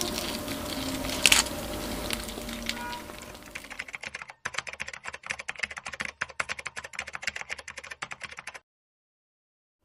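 Chewing and handling crispy pork knuckle for about three seconds, with one sharp crunch about a second in. Then comes a rapid run of keyboard-typing clicks for about four and a half seconds, a typing sound effect timed to text being typed out on screen, which cuts off suddenly.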